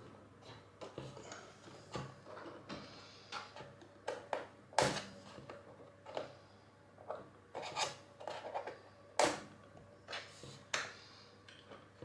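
Plastic rubbing and scattered small clicks as fingers try to pry the small cleaning brush out of its clip inside a Roborock S6 MaxV robot vacuum. The brush stays stuck. The two sharpest clicks come about five and nine seconds in.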